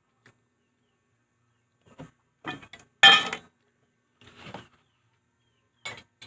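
Scattered short clinks and clatters of eating and handling dishes, utensils or mussel shells against a plate, the loudest a sharp clatter about three seconds in.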